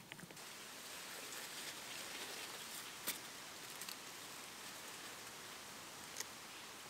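Faint, steady outdoor hiss with light rustling of cucumber vines as cucumbers are picked by hand, and a sharp snap about three seconds in and another near the end.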